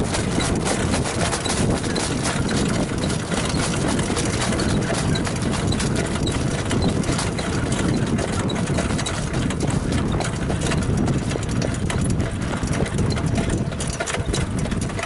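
Standardbred trotter's hoofbeats in a fast, steady rhythm, over a continuous low rumble.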